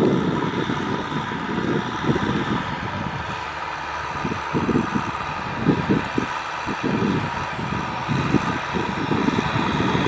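Kubota M6040SU tractor's diesel engine running steadily under load while ploughing, with an uneven low rumble rising and falling throughout.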